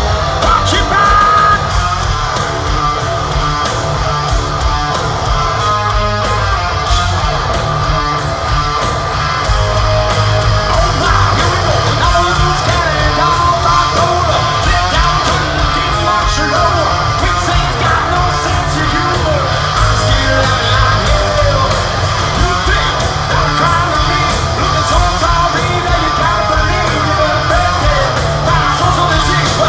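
Hard rock band playing live: a singer over electric guitars and a steady drum beat.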